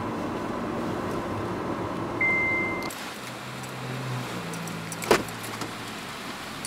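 Steady road and engine noise inside a moving car's cabin, with a short high beep about two seconds in, cut off suddenly near three seconds to a quieter low engine hum of the stopped car. About five seconds in, a single click as the passenger door is unlatched and opened.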